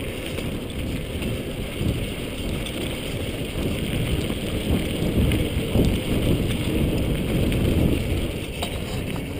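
A mountain bike rolling fast down a dirt trail: tyre rumble and small rattles of the bike, under a steady low wind buffeting on the camera's microphone.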